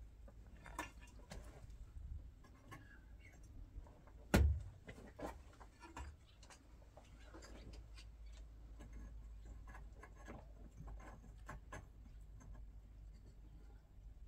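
Scattered clicks, taps and scrapes of laying concrete blocks in mortar, with one louder knock about four seconds in.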